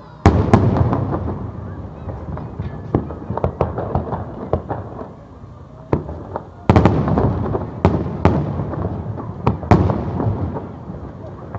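Fireworks display: aerial shells bursting in dense volleys of sharp bangs and crackling. A loud barrage starts just after the beginning and a second one about seven seconds in.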